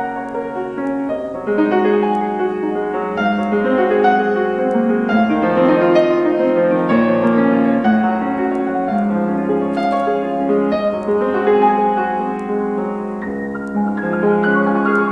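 Grand piano played: a hymn in slow, sustained chords.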